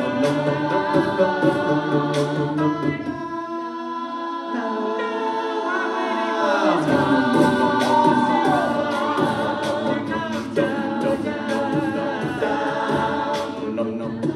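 A vocal group singing a cappella: wordless harmonies over a steady beat. The low bass part drops out for a couple of seconds around the middle, then comes back in with a sliding vocal swoop.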